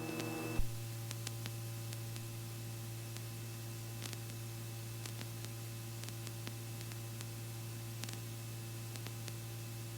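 Steady low hum and hiss of the Robinson R44 helicopter in a hover, heard through the headset intercom feed, with a few faint ticks.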